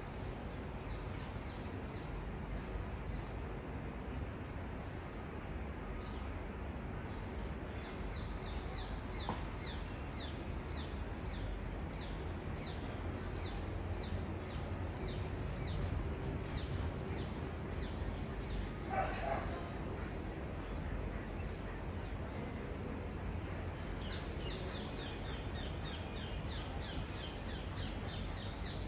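Park ambience: a steady low rumble of distant city traffic under a small bird's short, high, repeated chirps, about two a second, which come thicker near the end. A single brief louder call sounds about two-thirds of the way through.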